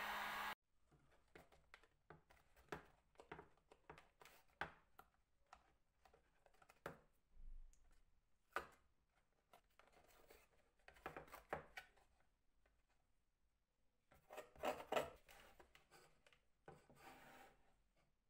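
A steady rushing noise cuts off about half a second in, then faint, scattered clicks, taps and short scrapes of handwork with tools on an old mandolin under restoration, with a brief run of louder scraping late on.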